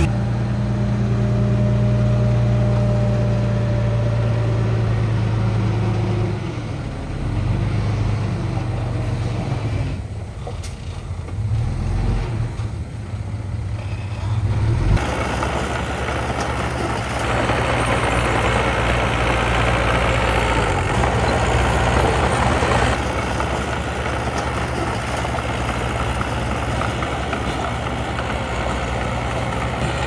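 Diesel engine of earthmoving machinery running steadily. It eases off and runs unevenly from about six seconds in, then from about fifteen seconds in it runs harder with a steady rough rushing noise on top.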